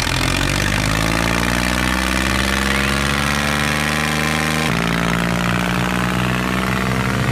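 Tractor engine running steadily, its pitch rising slightly, with an abrupt change in the engine sound a little past halfway.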